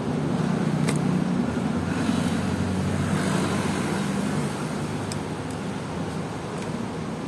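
Steady rumble of road traffic, a little louder through the first half. Over it come a few light clicks and the rustle of paper packaging being peeled off a button cell battery.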